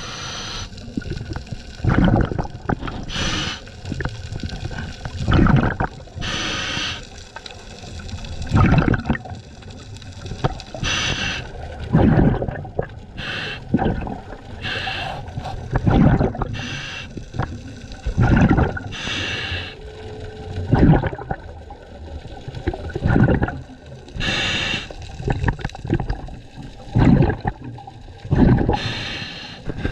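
Scuba diver breathing through a regulator underwater: a short hiss on each inhale, then a burst of gurgling exhaust bubbles on each exhale, repeating every few seconds.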